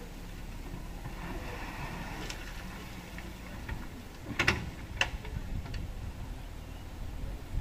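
Diesel engines running low and steady while a loader tips a bucket of soil and rocks into a dump truck's steel bed, with two sharp clanks a little past the middle and a few lighter ticks around them.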